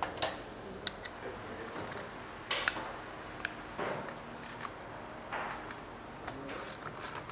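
Ratchet wrench with a spark-plug socket clicking in short runs, with sharp metal taps, as a spark plug is worked loose from a motorcycle cylinder head.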